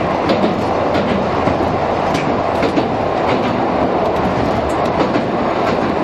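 Manyō Line De 7070-type tram running steadily, heard from inside the cab: the rumble of its nose-suspended (tsurikake) traction motors and gearing, with scattered clicks from the wheels on the rails.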